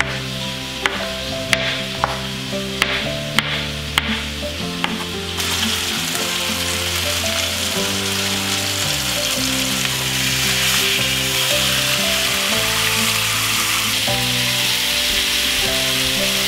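A chef's knife slicing mushrooms on a wooden cutting board, about seven sharp taps, then from about five seconds in, chicken breasts sizzling steadily in a hot cast-iron skillet. Background music plays underneath.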